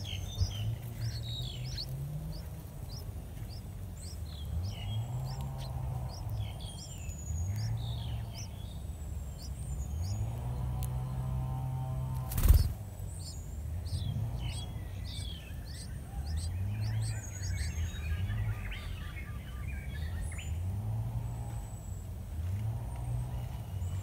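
Many short, high bird chirps and tweets, over a low hum that rises and repeats every two to three seconds; a single sharp knock about halfway through is the loudest sound.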